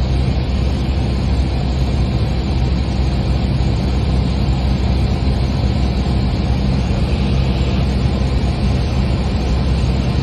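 Steady drone of a light propeller airplane's piston engine and propeller heard inside the cabin: a constant low hum of evenly spaced tones under a broad rushing noise, unchanging throughout.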